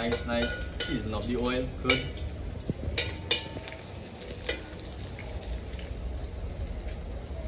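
Onion, garlic and pepper frying in oil in a large aluminium pot, stirred with a long metal spoon that clinks against the pot a few times around the middle.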